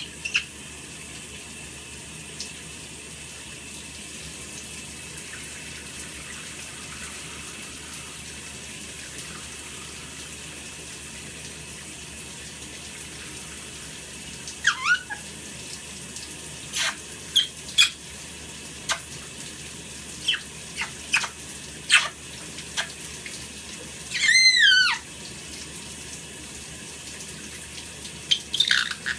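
Shower water running steadily. About halfway through, a caique parrot starts calling: short chirps and sharp clicks, then one longer wavering squawk near the end.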